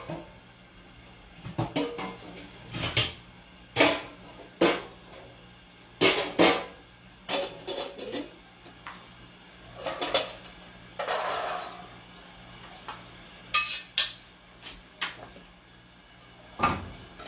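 Stainless steel pots and a metal colander clanking and knocking against each other and the sink in a string of separate knocks, while cooked chickpeas are drained. About eleven seconds in comes a short pour of the cooking water through the colander.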